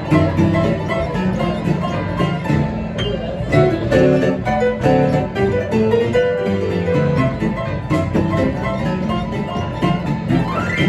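Upbeat instrumental music led by a plucked banjo, with guitar, in a bluegrass or country style.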